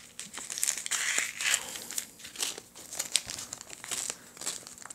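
Small plastic packet of fishing beads crinkling in the fingers as it is handled, in irregular crackles.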